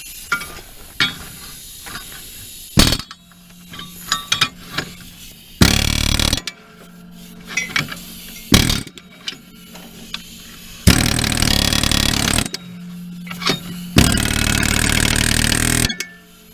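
Impact wrench hammering in about five bursts on a seized mower-blade nut, the later bursts lasting a second or two; the nut does not break loose.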